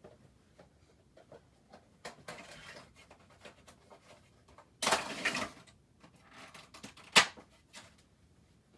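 Funko Pop window box being opened and the vinyl figure pulled from its plastic tray: rustling and scraping of cardboard and plastic in several short bouts, with a longer bout about five seconds in and a sharp click a couple of seconds later.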